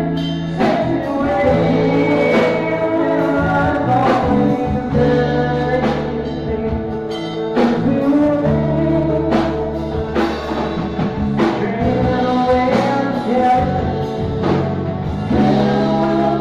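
The opening of a slow band song: sustained chords over a held bass line, with a soft beat about once a second.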